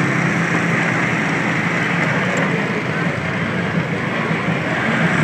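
Moped engine running steadily while riding, with wind and road noise on the microphone.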